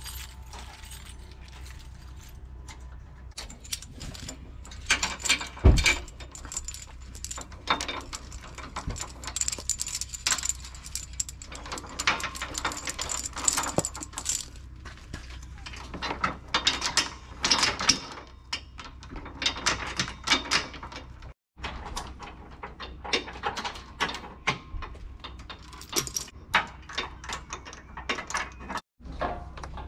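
Steel safety chains and trailer hitch hardware clinking and rattling as a travel trailer's coupler and chains are hooked to a pickup's hitch, with a louder metal clunk about six seconds in, over a steady low hum.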